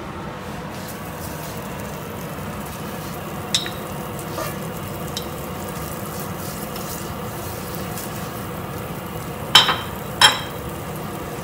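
Butter sizzling in a hot nonstick frying pan as it is brushed across the surface with a silicone pastry brush, a steady frying hiss. A sharp tap about a third of the way in and two more in quick succession near the end.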